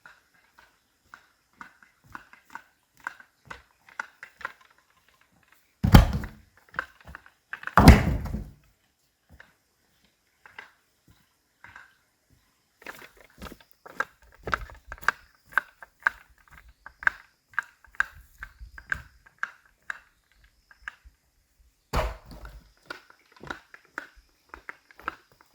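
Wood knocking against wood: two heavy thuds about two seconds apart a quarter of the way in and another near the end, among many small knocks and clicks.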